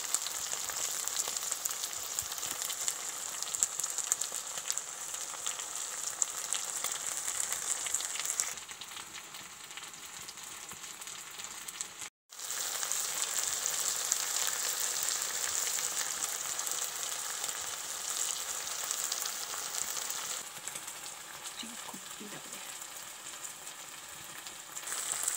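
Chopped wild mushrooms sizzling as they fry in oil in a wok, a dense crackling hiss. It turns quieter about eight seconds in, breaks off for a moment around twelve seconds, then comes back and softens again near the end.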